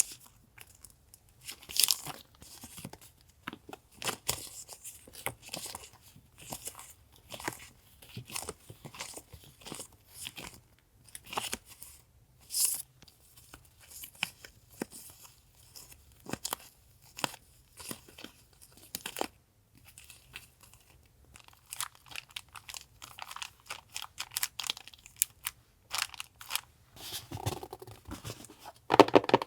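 Paper sticker sheets and plastic packaging handled by hand: irregular crinkling and crackling rustles, with a louder handling knock near the end.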